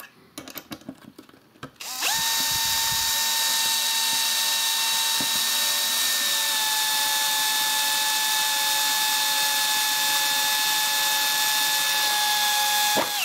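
After a couple of seconds of small clicks, a power screwdriver runs steadily for about eleven seconds, driving an M5 by 50 mm screw through a 3D-printed PLA part; its whine drops slightly in pitch twice as the screw goes in, then cuts off suddenly.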